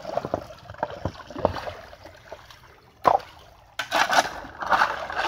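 A long-handled spade and stones knocking and scraping in a shallow irrigation channel of running water, which trickles underneath. A sharp knock comes about three seconds in. From about four seconds the spade splashes and scrapes through the wet gravel as the channel is dug to turn the water into the garden.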